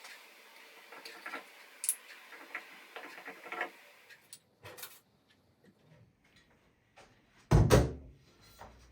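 Small clicks and taps of hand tools handled on a tap, then one louder, heavier clunk near the end.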